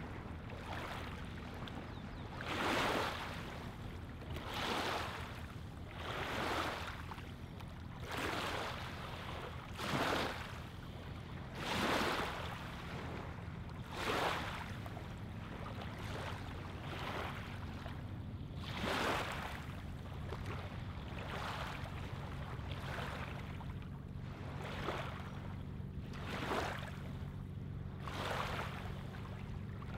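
Small lake waves lapping on a sandy, pebbly shoreline, a soft wash every one to two seconds, over a steady low hum.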